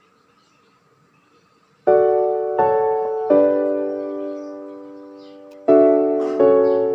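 Piano playing chords: after a quiet start, three chords are struck in quick succession and left to ring and fade. Near the end the same phrase starts again.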